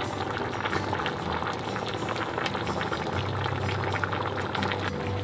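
Pork backbone and potato stew (gamjatang) boiling in a stainless steel pot: steady bubbling with many small pops and crackles.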